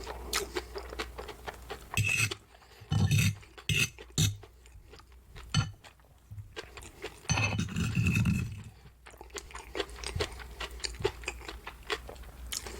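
Eating sounds at a close microphone: cutlery clinking against a plate, and a few louder crunchy bites and chewing of breaded pork cutlet, coming in irregular bursts.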